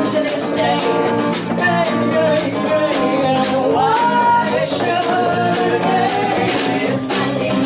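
A woman singing with a strummed acoustic guitar, performed live.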